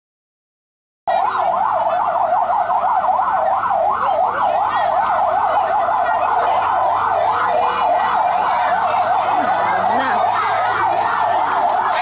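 Siren in a fast yelp, a wailing tone rising and falling several times a second, starting abruptly about a second in after silence.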